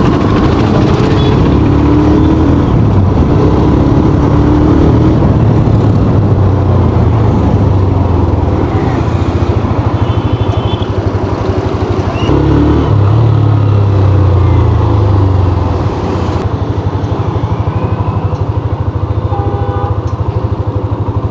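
Hero Xtreme 125R's 125 cc single-cylinder four-stroke air-cooled engine running under way on the road. The engine note changes about twelve seconds in and eases off slightly around sixteen seconds.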